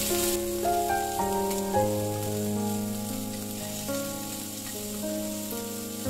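Shrimp sizzling in hot oil in a frying pan, a fine steady hiss, under background music of held notes that change every half second or so.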